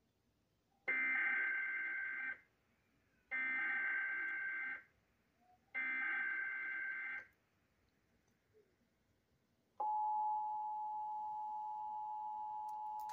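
Emergency Alert System SAME header: three identical stretches of warbling data tone, each about a second and a half long and a second apart. About ten seconds in, the steady two-tone EAS attention signal starts and holds. Together they mark the start of a new warning broadcast.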